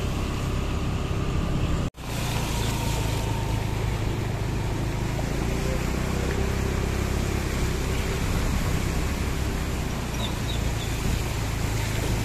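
Floodwater rushing and splashing around a vehicle moving through a flooded street, over a steady low rumble. The sound cuts out for an instant about two seconds in.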